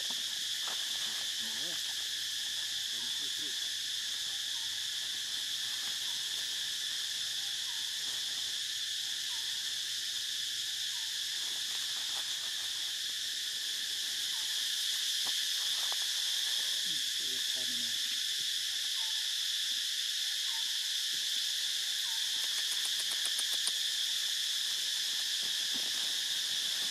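A steady, shrill chorus of forest insects, unbroken and strongest high in pitch, growing slightly louder about halfway through.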